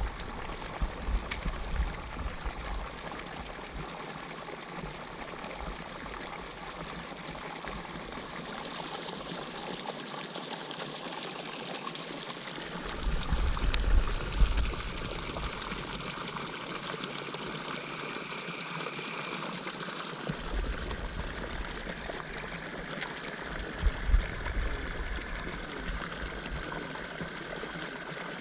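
Steady trickle and pour of water running into a pond from an inlet, with a few low bumps about halfway through and again near the end.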